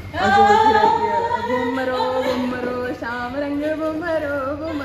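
A voice singing a song melody in long, held, gliding notes.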